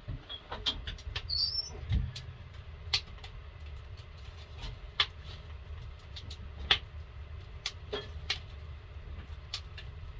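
Irregular banging around: sharp knocks and clatter of things being handled, the loudest a few seconds in and about two-thirds through, over a steady low rumble.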